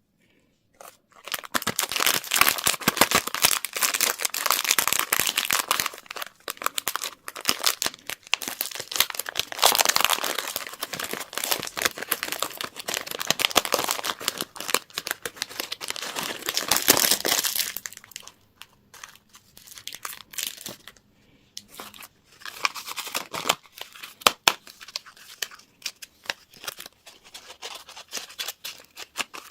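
Candy wrappers crinkling and tearing as they are unwrapped by hand, starting about a second in. The crackling is dense and continuous at first, then thins to scattered crinkles for the last third.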